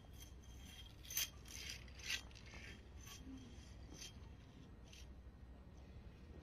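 Quiet indoor sports-hall ambience with a faint steady hum and a few short scrapes and clicks, the loudest about a second and two seconds in.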